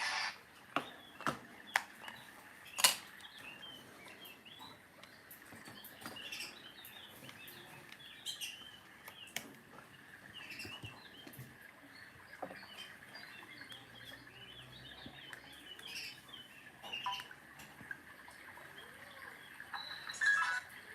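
Faint bird chirping and twittering, many short calls scattered throughout, with a few sharp clicks in the first three seconds, the loudest about three seconds in.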